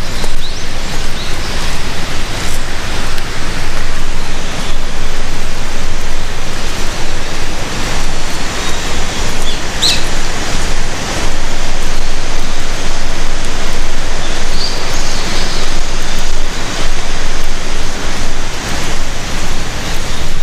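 Loud, steady rush of water from the gorge's river or waterfall, with a few short bird chirps over it, the clearest about halfway through.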